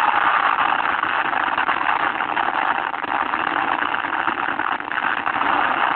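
Steady car engine noise heard from inside the cabin, an even hiss-like sound with no distinct rhythm.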